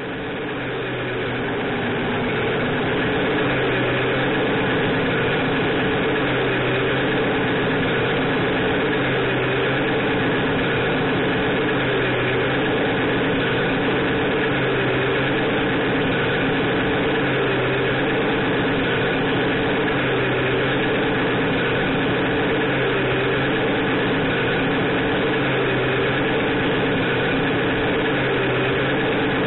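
Tamiya RC truck's Beier USM-RC2 sound module playing a steady diesel truck engine sound through its small speaker, with a pattern repeating about every two and a half seconds. It fades in over the first few seconds.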